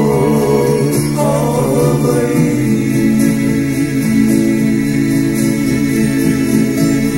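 A man singing a slow song over instrumental backing music. He holds long notes with vibrato, with a short run of changing notes about a second in.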